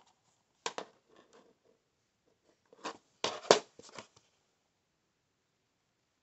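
A plastic DVD case handled and turned over in the hand: a few sharp clicks and rubs just under a second in, then a louder cluster of clicks and scrapes around three to four seconds in.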